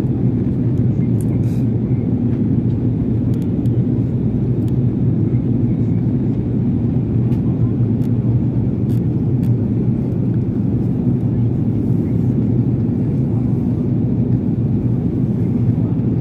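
Jet airliner in cruise or descent heard from inside the cabin: a steady, deep rumble of engine and airflow noise with a constant low hum.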